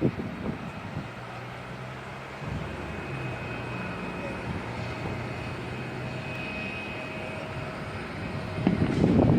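Jet airliner engines at takeoff power: a steady rushing noise with a thin high whine and a low hum, and a louder gusting rush near the end.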